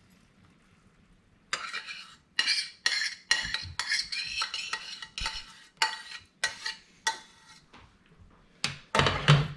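Metal spoon scraping thick hoisin dipping sauce out of a stainless steel skillet into a small bowl: a run of scrapes and clinks with a metallic ring, starting about one and a half seconds in, with a louder clatter near the end.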